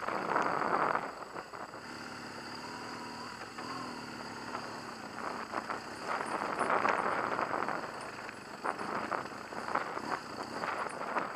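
BMW HP2 Enduro's boxer-twin engine running as the bike rides a dirt track, mixed with rushing tyre and wind noise that swells in surges.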